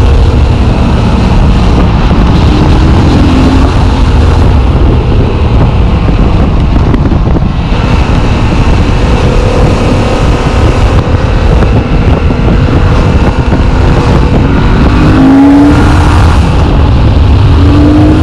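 Yamaha MT-07's parallel-twin engine running on the move, its pitch climbing twice near the end as it accelerates, with heavy wind noise on the rider's chest-mounted microphone.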